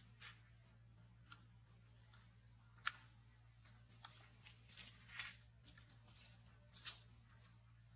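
Faint, irregular crackles and rustles from macaques chewing and moving on dry leaves, with one sharper click about three seconds in. There are two brief high chirps around two and three seconds in.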